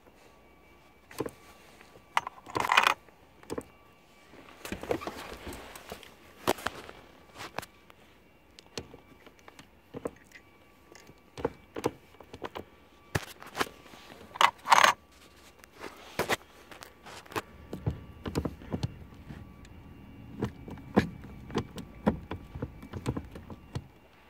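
Irregular clicks and clunks of a Toyota Corolla's floor gear shifter assembly being worked by hand, plastic and metal parts knocking, with two louder rattling bursts, about three seconds in and again about halfway through.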